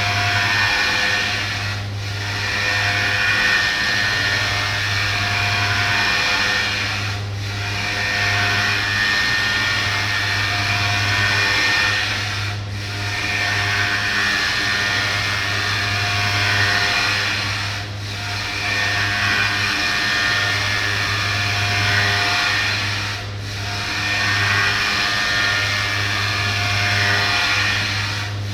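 CNC orthopedic milling machine cutting a prosthetic workpiece: the spindle runs with a steady hum and a dense cutting noise. The cutting noise drops away briefly about every five seconds and then builds up again.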